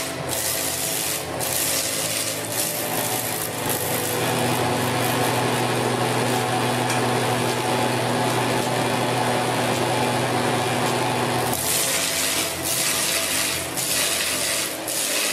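Log-rounding lathe rough-turning a spinning log, its motor-driven cutter head shaving chips off the wood with a steady hum under the cutting noise. About eleven and a half seconds in the hum drops out and the cutting comes in uneven surges.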